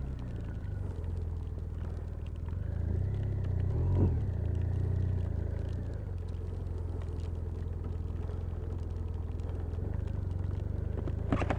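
BMW touring motorcycle engine running at low town speed, a steady low rumble that picks up briefly about four seconds in, with a short sharp sound just before the end.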